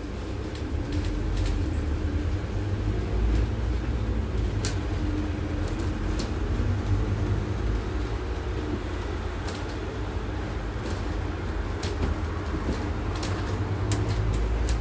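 Engine and drivetrain of a biogas-powered Scania N280UD double-decker bus, heard from the upper deck: a low rumble that grows louder about a second in as the bus pulls away from traffic lights, then carries on steadily as it drives, with scattered sharp clicks throughout.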